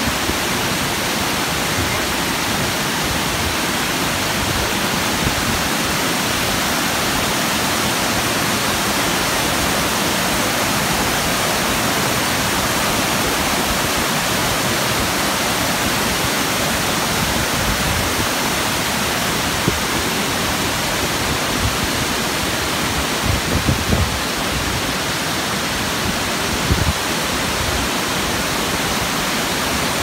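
Waterfall water pouring down rock and splashing below, a steady rushing sound. A few brief low bumps come about three-quarters of the way through.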